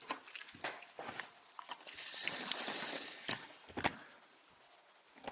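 Cardboard box being handled and turned over by hand: a few light taps and knocks, with a soft brushing sound of hands sliding over the cardboard in the middle.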